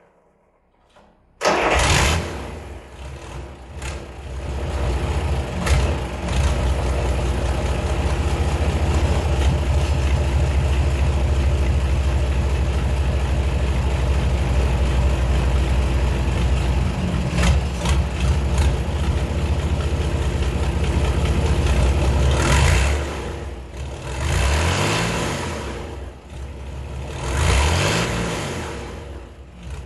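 Rebuilt Mercedes-Benz OM447 inline-six diesel catching suddenly about a second and a half in, then running steadily. Near the end the engine speed rises and falls twice.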